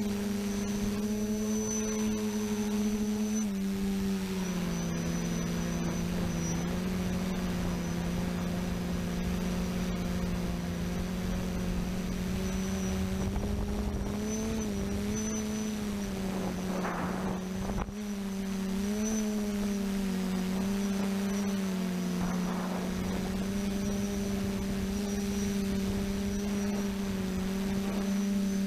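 TBS Discovery quadcopter's motors and propellers humming steadily as heard from its onboard camera, the pitch stepping and wavering slightly with throttle changes. Wind rumbles across the microphone underneath, swelling briefly twice in the second half.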